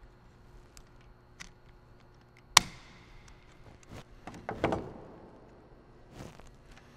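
A sharp click about two and a half seconds in, then a cluster of knocks and rattles around the five-second mark and a softer knock near the end: a zip tie and transducer cable being handled and fastened on a trolling-motor shaft.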